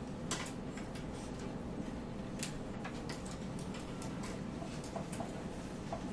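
Quiet classroom room tone: a faint steady hum with scattered light clicks and taps at irregular moments.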